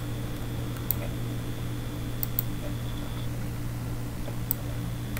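Steady low hum with a few sharp computer mouse clicks: one about a second in, a quick pair a little after two seconds, and one more near the end.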